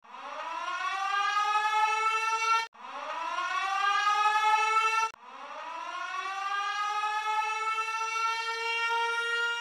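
Siren-like sound effect winding up three times: each wail rises in pitch and then levels off into a steady tone. The first two are cut off abruptly after about two and a half seconds each.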